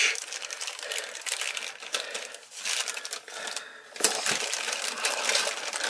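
Clear plastic bag around plastic model-kit sprues crinkling and crackling as hands handle it, with a short lull and then a sharp crackle about four seconds in.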